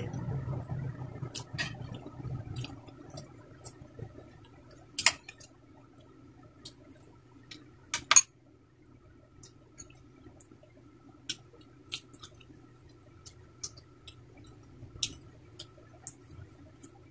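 Eating sounds at a table: scattered small clicks and taps of hands and food on plates, with two louder clicks about five and eight seconds in and some faint chewing, over a low steady hum.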